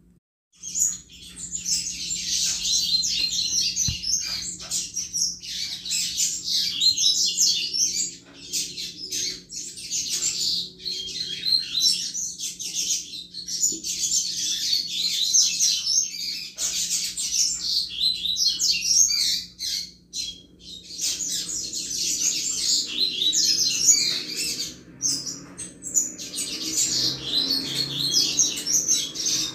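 Double-collared seedeater (coleiro) singing the 'Chuva' song: a fast, continuous run of high chirps and twitters that starts about half a second in, breaks off briefly about two-thirds of the way through, then resumes.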